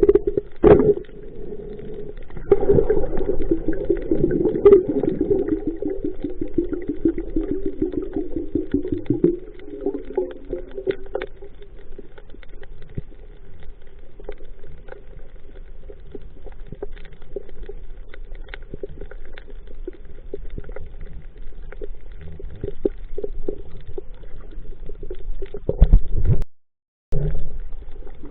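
Muffled underwater sound picked up by a camera in the sea: a steady low water rumble with gurgling and many small crackling clicks. It is louder and fuller for the first several seconds, then settles, and it drops out briefly near the end.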